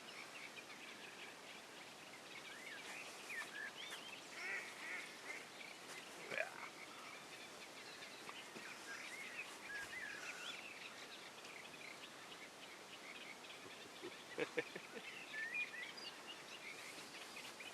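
Outdoor birdsong: many short, high chirps and twitters run on and off throughout, with a few louder, lower calls about six seconds in and again near fourteen seconds.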